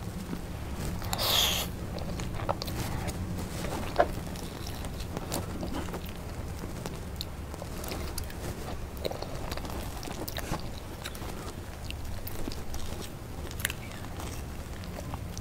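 Close-up eating of soft, creamy durian mille-crêpe cake: soft, wet chewing and mouth sounds with scattered small clicks from the spoon. There is a short, louder rustle just over a second in and one sharp click about four seconds in, over a steady low hum.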